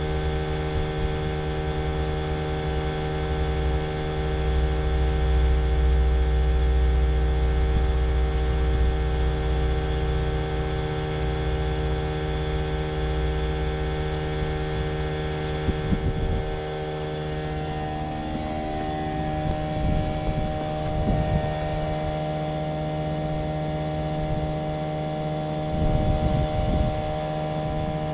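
Trane XV18 variable-speed heat pump running with a steady drone made of several held tones, over a deep rumble that is strongest in the first half; the tones shift slightly in pitch past the middle. The owner considers the unit abnormally noisy, a lemon.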